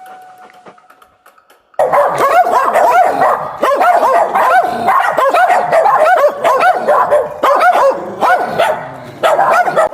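Dog barking and yipping in a rapid string of short, high-pitched calls, each rising and falling in pitch, several a second, starting suddenly about two seconds in after a near-quiet start.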